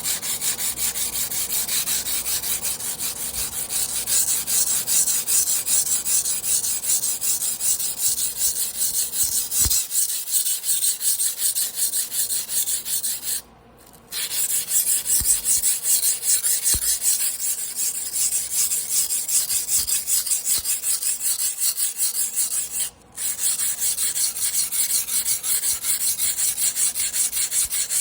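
Carbon-steel sashimi knife blade being ground by hand on a whetstone: rapid back-and-forth rasping strokes that stop briefly twice.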